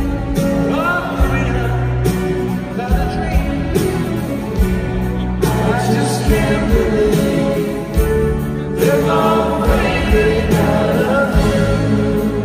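Live band music: a slow song with strummed acoustic guitars under singing with harmonised backing vocals.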